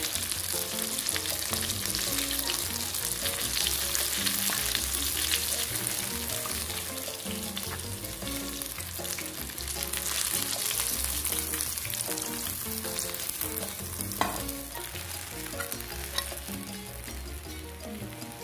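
Breaded tilapia fillets sizzling as they fry in hot oil, with one sharp tap about three-quarters of the way through. Faint background music sits underneath.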